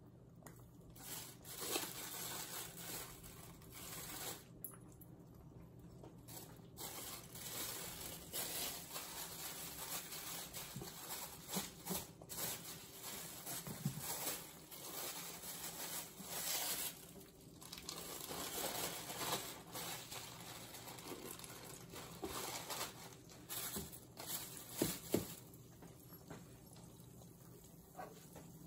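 Two eggs frying in butter in a nonstick pan with a soft, uneven sizzle, mixed with crinkling of plastic packaging and small clicks as cheese slices are handled.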